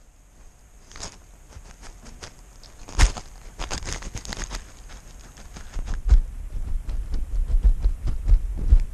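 Handling noise from a GoPro worn by a cat: the camera rubs and knocks against the cat's body and harness as it moves. There is one sharp knock about three seconds in and scattered clicks and rustles, then frequent low thuds and bumps from about six seconds on.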